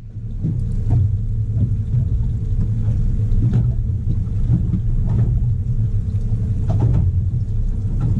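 Wind buffeting the camera microphone on an open boat: a steady low rumble, with a few faint knocks.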